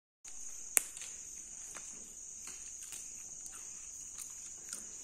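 Steady high-pitched chirring of crickets, with scattered light clicks and taps from hands and food on plastic plates, the loudest a sharp click a little under a second in.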